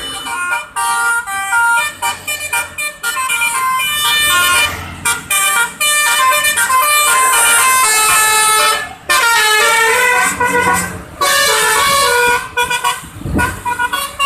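Basuri telolet bus horn playing a fast melody of short stepped notes, with brief breaks about nine and eleven seconds in. A short low rumble comes near the end.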